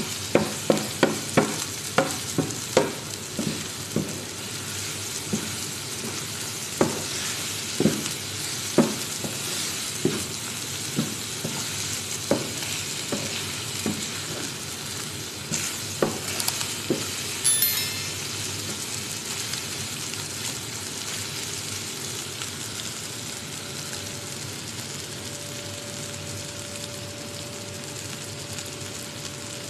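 Chicken strips and vegetables sizzling in a non-stick frying pan while a wooden spatula stirs them, knocking against the pan every second or so. After about seventeen seconds the knocking stops and only the steady sizzle remains.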